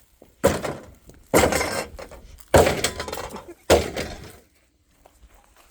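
Four heavy blows smashing into a refrigerator, about a second apart, each a sharp crash with a short rattling tail.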